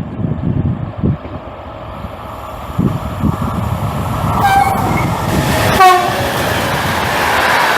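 A train sounds two short horn blasts, about four and a half and six seconds in, as its rumble grows steadily louder on the approach. Gusts of wind buffet the microphone in the first seconds.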